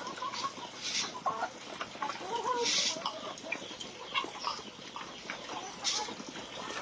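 A flock of chickens clucking, with short scattered calls, and a few brief scratchy noises about a second in, near the middle and near the end.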